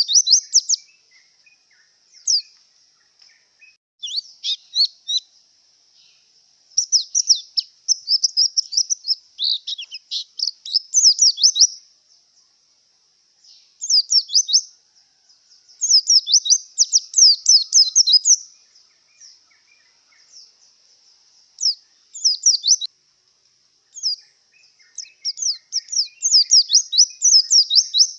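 White-eye (pleci) singing in breeding condition: repeated bouts of fast, high twittering notes, each bout a second to a few seconds long, with short pauses between.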